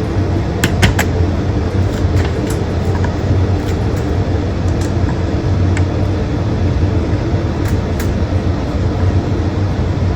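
A steady low mechanical hum, with a few light clicks and taps through it, the first cluster about a second in.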